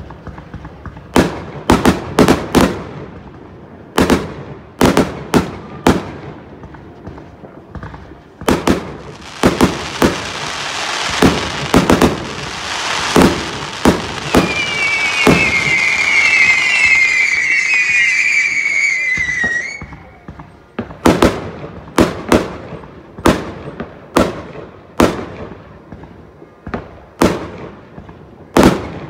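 New Year's fireworks going off all around: a rapid string of sharp bangs from firecrackers and exploding rockets. In the middle, a long hiss rises, with a cluster of shrill whistles that fall in pitch and stop suddenly. Then the bangs carry on to the end.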